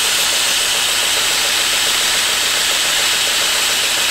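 Radius Master belt grinder running a fine ceramic belt over a small curved wheel, with a steel travisher blade's bevel pressed against it: a steady grinding hiss. This is the final bevel being ground until a burr forms along the cutting edge.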